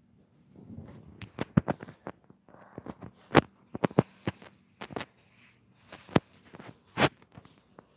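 Irregular knocks, clicks and rubbing of a phone being handled and moved about close to its microphone, about a dozen sharp knocks in all, the loudest about three and a half and seven seconds in.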